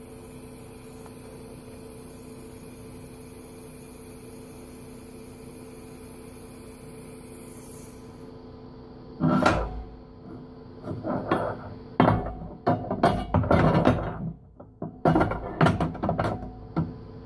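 TIG welding arc from a Miller Syncrowave 250 running steadily on steel angle iron: a steady hum with a high hiss that stops about eight seconds in. After it come irregular knocks and clatter.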